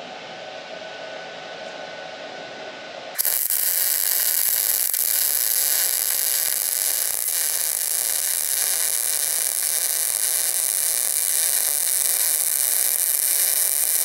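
Electric arc welding on a preheated cast-steel Dana 60 axle housing: the arc strikes suddenly about three seconds in and then runs as a steady, loud crackling sizzle.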